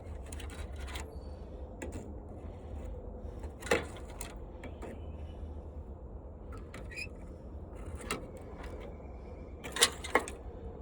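A few sharp clicks and knocks of wire connectors being pulled off an old washing machine's wiring by hand, two close together near the end, over a low steady rumble.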